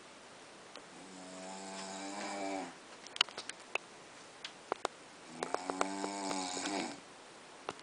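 A man snoring: two drawn-out, buzzing snores about four seconds apart, with a few sharp clicks between them.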